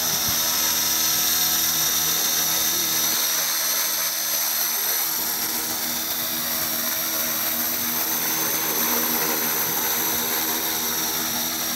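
Align 450-size electric RC helicopter, built as a Hughes 300 scale model, hovering: a steady high-pitched whine from the electric motor and gears over the whoosh of the spinning main rotor.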